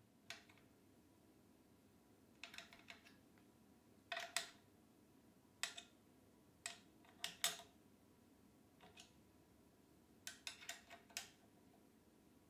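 Small metallic clicks and taps of a hand screwdriver working a screw on a circular saw's metal base plate, short clicks in scattered groups with quiet between, a quick run of them near the end.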